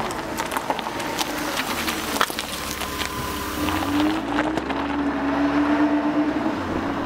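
An engine running steadily, with many scattered clicks; its pitch rises a little about three and a half seconds in and then holds.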